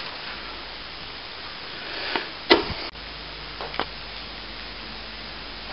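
Faint scraping and handling sounds of a trowel working wet cornice cement into a gap, with one sharp click about two and a half seconds in.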